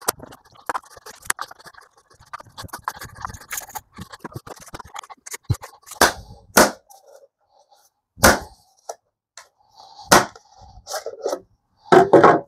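Small clicks and scrapes of a screwdriver and loose screws on a plastic battery case. From about halfway in, the battery's plastic case is pulled apart and its parts are set down on a wooden workbench with several loud sharp knocks.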